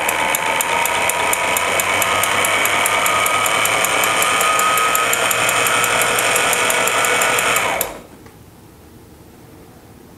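Sailrite LSZ-1 Ultrafeed portable walking foot sewing machine sewing piping in a straight stitch at speed: a steady motor whine, rising slightly in pitch, over rapid, even stitch clicks. It stops abruptly about eight seconds in.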